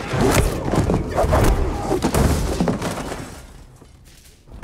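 Fight-scene sound effects: a quick run of crashes and thuds, dying away about three seconds in.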